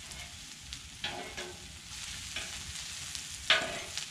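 Fajita peppers and onions sizzling on a hot carbon steel flat-top griddle, with a metal spatula scraping and clinking on the steel a few times, loudest about three and a half seconds in.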